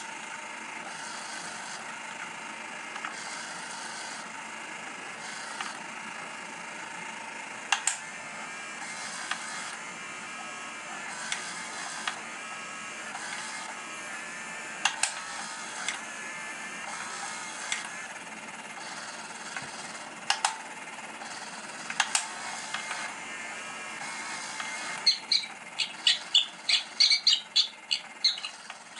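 Vayne Hot Pursuit electronic cat toy running on its batteries: a steady motor whir, with a sharp click now and then as the plastic tail mechanism moves. About 25 seconds in, a quick run of high squeaks starts, several a second, from the toy's squeaking setting.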